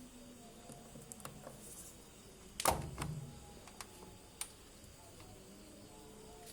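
A single sharp knock about two and a half seconds in, ringing briefly, with a few fainter clicks before and after it over a faint steady hum.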